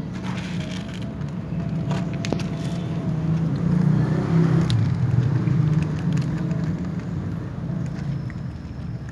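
A cat crunching dry kibble, a few sharp crunches standing out, over a steady low rumble that swells in the middle.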